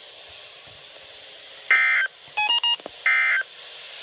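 Emergency Alert System end-of-message data bursts: two short, buzzy digital squawks about a second and a half apart, marking the close of the warning. Between them comes a quick run of touch-tone (DTMF) beeps, over a faint radio hiss.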